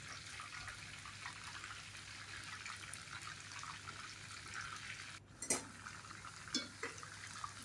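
Marinated chicken pieces deep-frying in hot oil: a faint, steady sizzle and crackle of bubbling oil. A little past halfway the sound briefly drops out, followed by two short clicks.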